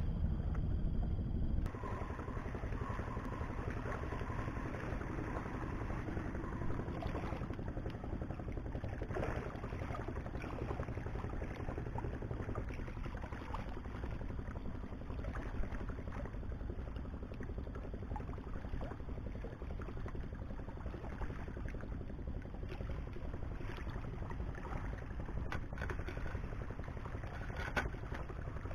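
Wind rumbling on the microphone over a steady wash of small waves against breakwater rocks, with a stronger gust in the first second or two.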